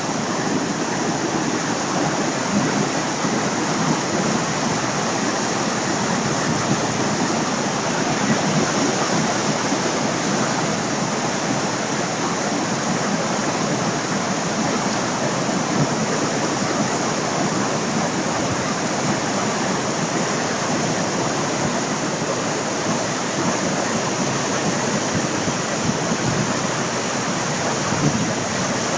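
A small brook in flood, running just short of overflowing its banks: fast, muddy, churning water rushing in a loud, steady noise.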